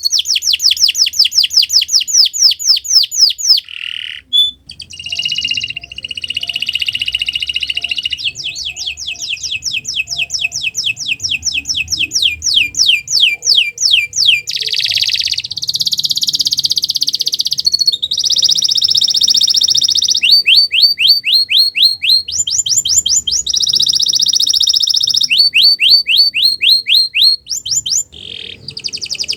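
Domestic canary singing a long, unbroken song of rapid trills, each run of repeated notes giving way to another every few seconds, with short buzzy rolls between them.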